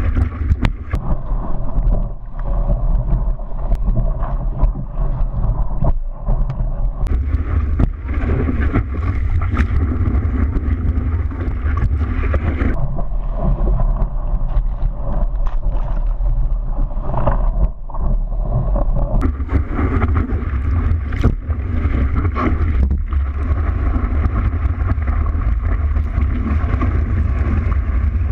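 Steady motor rumble with wind buffeting the microphone, as from a motorboat under way.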